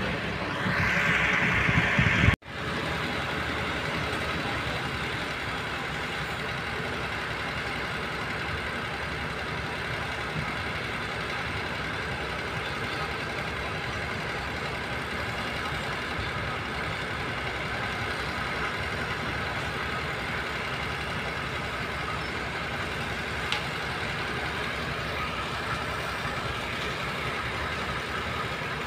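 Concrete mixer trucks' diesel engines running steadily.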